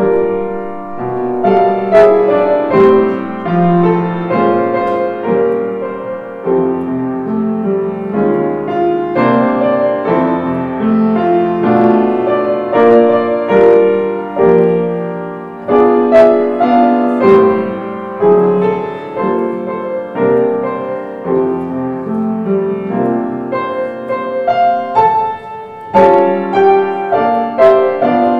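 Solo upright piano playing a melody over held chords.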